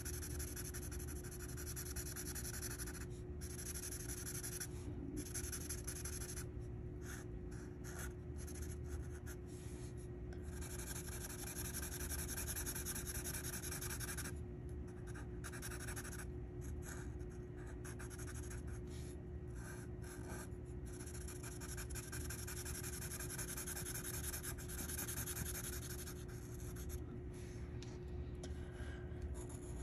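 Sharpie marker tip stroking on paper as areas are colored in: a scratchy hiss in runs of a second or more, broken by short pauses, over a faint steady hum.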